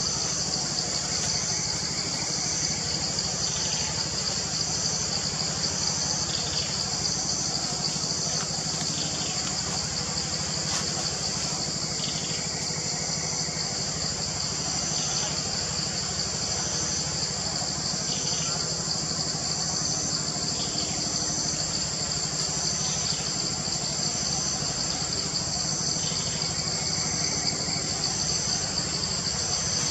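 Steady, high-pitched insect chorus with a pulsing note repeating about once a second, over a low steady hum.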